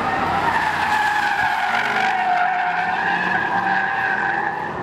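Mercedes-Benz SLS AMG's tyres squealing in a long sideways drift, the squeal wavering in pitch, with its V8 engine running underneath.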